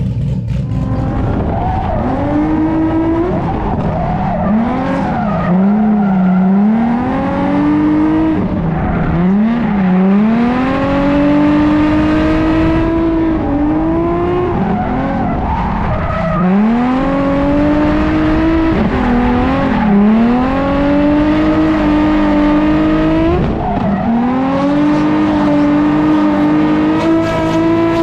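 A drift car's engine revving hard while sliding, its pitch climbing, dropping back sharply and climbing again every few seconds. Tyre squeal from the sliding tyres runs underneath.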